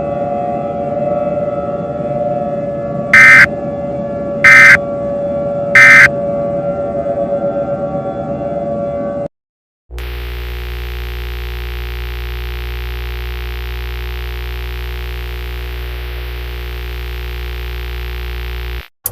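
Three short, loud bursts of EAS SAME digital data tones, the end-of-message code, over a steady droning tone bed. After a brief gap comes a steady low buzz with many overtones that cuts off abruptly near the end.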